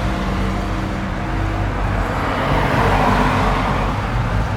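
Car engines rumbling at low revs, with a vehicle passing close by and growing loudest about three seconds in.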